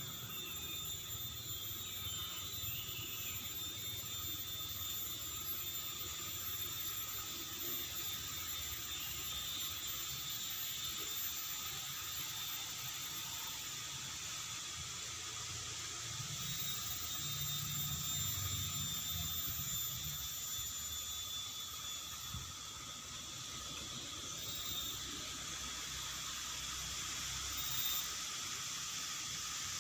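Steady hiss with several faint, constant high-pitched tones over it, and a brief louder sound near the end.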